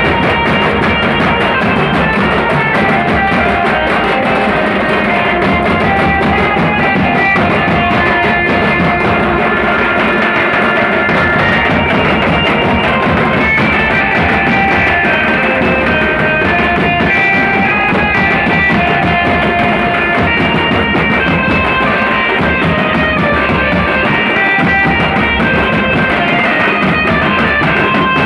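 Instrumental background music, playing steadily throughout.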